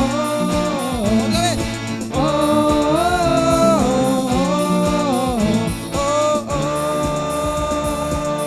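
Live Christian worship band music, with a voice singing long held notes over the instruments.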